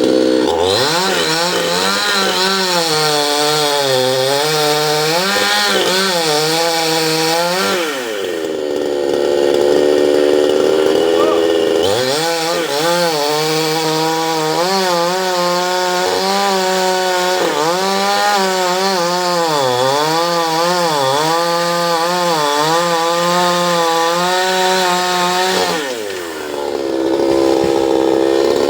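Two-stroke chainsaw cutting into a mango tree stump. The engine pitch drops and wavers under load in two long cuts, and revs up higher in between, about eight seconds in and again near the end.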